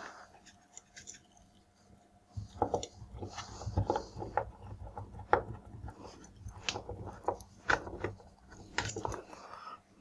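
A screwdriver working the terminal screws of plastic-bodied magnetic contactors while wires are handled: irregular scratchy clicks and rattles. They start about two and a half seconds in.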